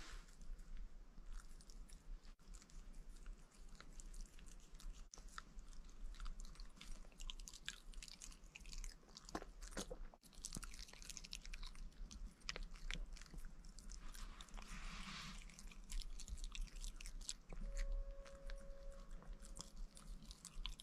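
A pet chewing and crunching its food in small, irregular bites.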